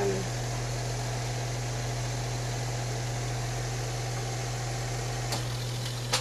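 Steady hum and fan-like rushing noise of running grow-room equipment, with a low drone underneath. Two short clicks near the end.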